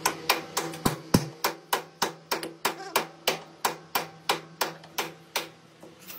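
A series of sharp knocks, evenly spaced at about three a second, over a faint steady hum.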